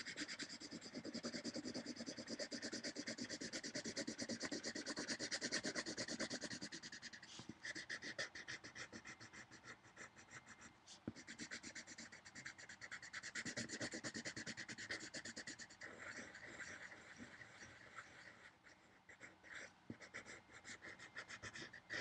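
Graphite pencil scratching on paper in rapid back-and-forth shading strokes, filling in a drawn circle; the strokes thin out and come more separately at times.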